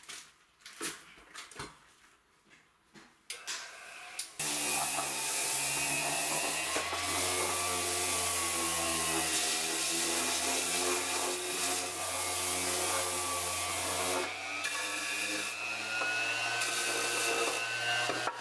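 Random-orbit electric sander with 240-grit paper switched on about four seconds in and running steadily over a 1x6 wooden board, a hum with a high whine; its pitch shifts slightly about two-thirds of the way through. Before it starts, faint clicks and rustling of the sandpaper being fitted and handled.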